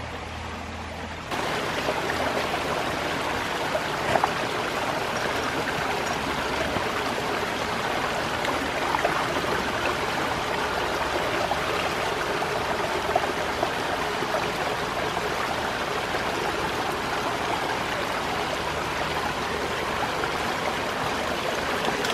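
Shallow creek water flowing and trickling over rocks, a steady rushing that becomes louder and closer about a second in, with a few faint knocks.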